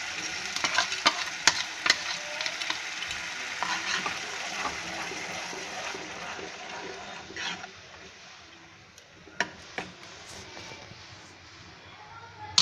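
Tomato puree sizzling in hot oil in a nonstick pan as a metal spoon stirs it into the fried onion-garlic paste, the spoon scraping and clicking against the pan. The sizzle fades about halfway through, leaving a few sharp taps.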